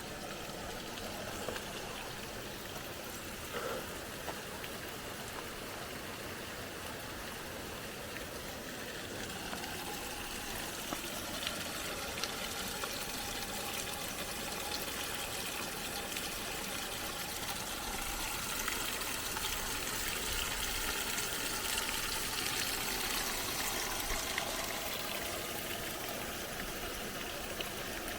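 Water running and trickling steadily, a little louder after about ten seconds.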